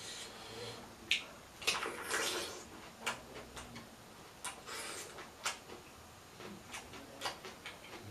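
A person eating close to the microphone: chewing and mouth sounds, heard as irregular clicks and a few short bursts of noise.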